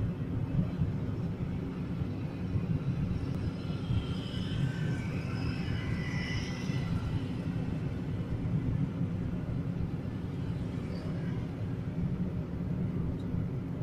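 Steady low rumble of a car's road and engine noise heard from inside the cabin while it drives at speed on a smooth road. A few faint high-pitched tones come through about four to seven seconds in.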